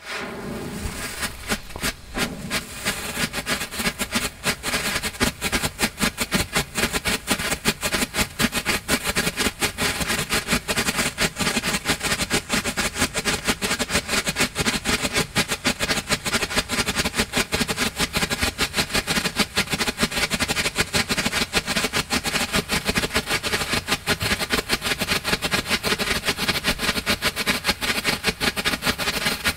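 Two Deci Bull Blinky strobe fountains burning together: their pressed strobe pellets pop continuously in a dense, rapid, irregular crackle. The sound starts abruptly.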